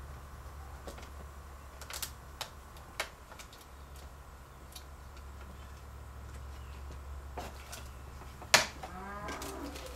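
Scattered light plastic clicks and taps from small parts being handled on a truck instrument cluster as bulb sockets are worked into it, over a steady low hum. One sharper click comes a little over a second before the end.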